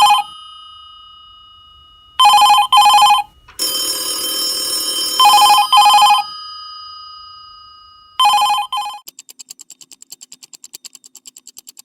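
Telephone ringing in double rings, three pairs of rings, with a harsher noisy stretch between the first two pairs. From about three quarters of the way through, a faint fast pulsing follows.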